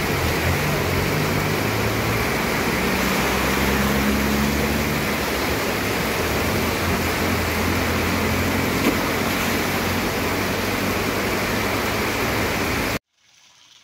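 Heavy rain and cars driving through deep flood water on a street, with engines running under a steady rush of rain and water. The sound cuts off suddenly near the end.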